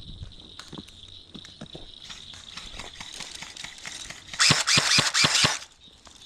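Crickets chirping in one steady high tone, with scattered faint clicks. About four seconds in comes a loud burst of rustling noise with five heavy thumps, lasting just over a second.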